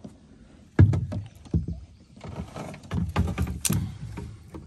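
Irregular knocks and thumps of gear and paddle against a kayak hull, the hardest about a second in, with a stretch of rustling and clatter in the second half.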